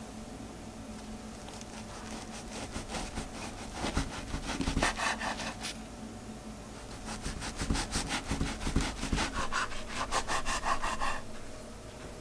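Kitchen knife sawing through stacked frozen white bread slices on a wooden cutting board, rapid back-and-forth strokes rasping through the crust. The strokes come in two runs with a short pause between.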